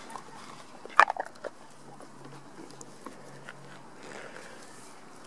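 Hens pecking at grain scattered on a lawn, with a quick run of sharp pecking clicks about a second in.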